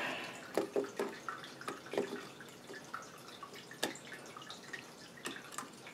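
Scattered light clicks and taps of a hand tool on small metal parts of an opened two-stroke moped engine crankcase, as an E-clip is worked off the starter interlock. There are about eight separate clicks, irregularly spaced, with the sharpest around two seconds in and just before four seconds.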